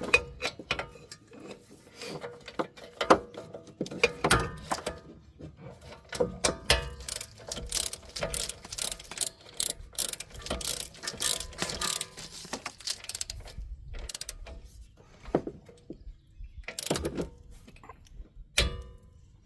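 Socket ratchet clicking in short runs as a wheel hub mounting bolt is run in and tightened, with a dense spell of rapid clicks in the middle and a short pause near the end.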